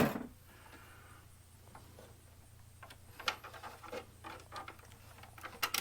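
A sharp knock at the start, then scattered light clicks and taps of a wire and tools being worked into a breaker panel terminal, over a steady low hum.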